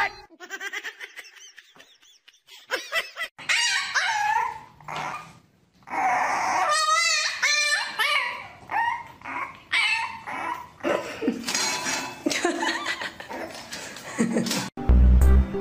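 Puppies barking in short high-pitched calls, with a quick run of barks about seven seconds in. Background music cuts in near the end.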